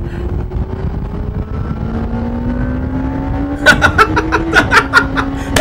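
Yamaha YZF-R1 sportbike's inline-four engine pulling hard, its pitch climbing steadily with a small drop about four and a half seconds in, over a rush of wind and road noise.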